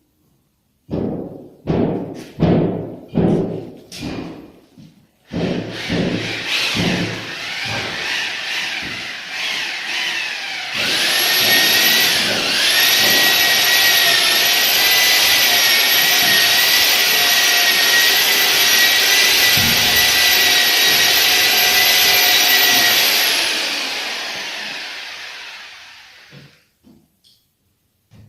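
An electric motor-driven tool. It starts in a series of short bursts, then runs steadily with a high whine, and winds down and stops near the end.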